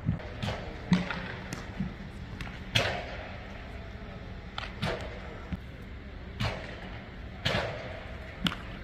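Baseballs smacking into leather gloves, about ten sharp pops at uneven intervals during a throwing and fielding drill, ringing out in a large indoor hall.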